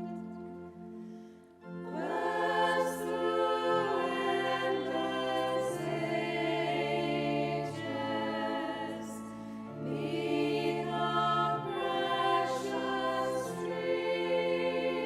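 A choir singing a hymn tune in several parts over sustained low bass notes; after a short pause about a second and a half in, a new phrase begins.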